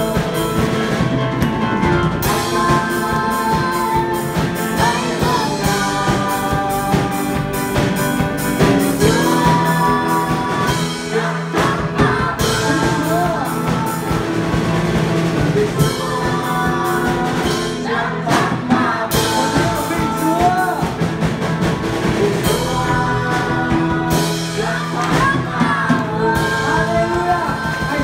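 Vietnamese Protestant hymn sung live: a woman and a man singing through microphones over a band with drum kit and electric guitar, the voices in long sustained lines over a regular drum beat.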